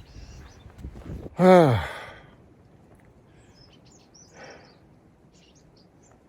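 A man's loud, voiced sigh falling in pitch, a weary out-breath in the heat, about a second and a half in, followed by a softer breath a few seconds later.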